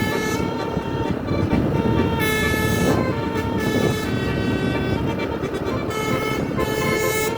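Tour bus telolet horn playing a tune of held multi-tone notes that change every half second or so, over the low rumble of the bus's engine and road noise.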